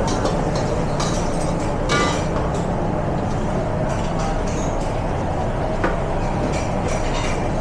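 Busy commercial kitchen during service: steady rumble of the extraction hood fans, with occasional sharp clinks of metal utensils and dishes.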